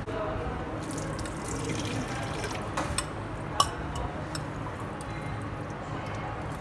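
Cooking water poured off a bowl of pasta into a stainless-steel sink, a fork holding the pasta back, running and splashing into the sink. A sharp clink about three and a half seconds in.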